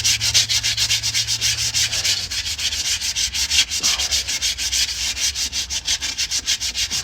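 150-grit sandpaper rubbed in rapid, even back-and-forth strokes over the metal gasket surface of a differential, scrubbing off old silicone sealant.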